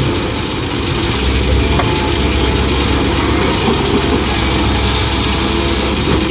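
Komatsu PC130-8 hydraulic excavator's diesel engine running steadily while at work, with a light click about two seconds in.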